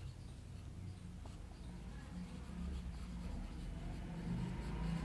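Faint scratching of a pen writing and drawing strokes, over a low background hum, growing a little louder toward the end.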